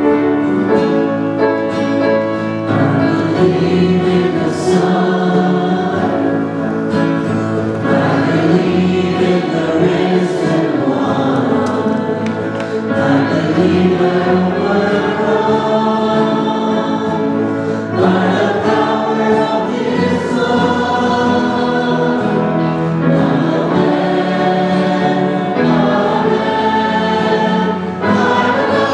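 Worship song played on acoustic and electric guitars, with a man singing lead at the microphone and many voices singing along.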